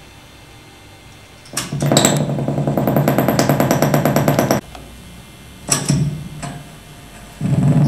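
Loud, rapidly pulsing electronic buzz from a modified portable radio-cassette player rigged with stretched strings. It starts suddenly about a second and a half in over a low hum, cuts off abruptly about three seconds later, gives a short burst and a click, and starts again near the end.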